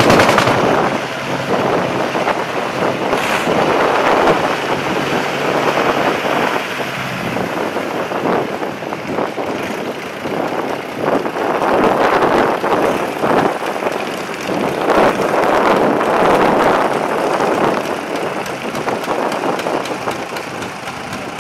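Diesel engines of Deutz tractors running hard under load as they churn through deep mud, surging louder and easing off several times.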